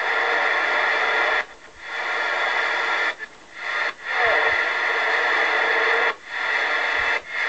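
Cobra 148GTL CB radio receiving open-channel static and band noise on the 11-metre band, with a faint steady whistle. The sound cuts out briefly about four times as the channel knob is clicked up through the channels.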